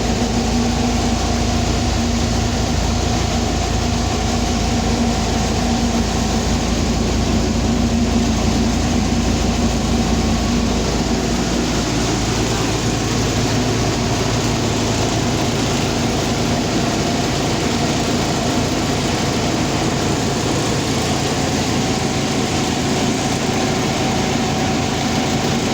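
Heavy machinery running steadily, a loud constant hum with a change in its tones about ten seconds in.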